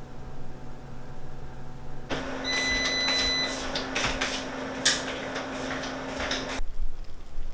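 A steady mechanical hum with scattered clicks and rustling, and a brief high whine, starting about two seconds in and cutting off suddenly near the end.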